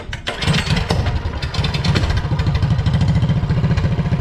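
The Coleman CT200U minibike's 196cc single-cylinder engine starts and catches about half a second in, then runs steadily with an even firing beat through a bare header pipe in place of the stock muffler, the carburetor not re-jetted.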